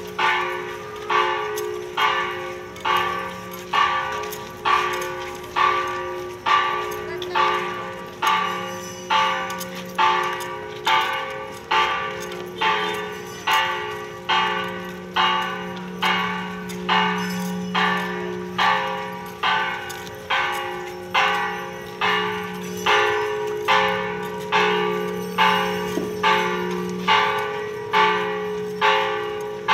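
Church bells ringing in a steady rhythm, about one stroke a second, each stroke ringing on into the next.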